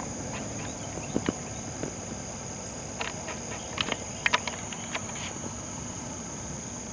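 Steady high-pitched drone of insects, with a few short clicks and taps scattered through it.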